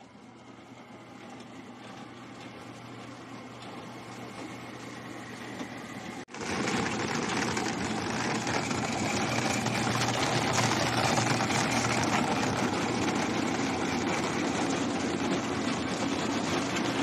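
Coffee depulping machine running with a steady motor drone. It grows gradually louder over the first six seconds, breaks off for an instant, then carries on steady and louder.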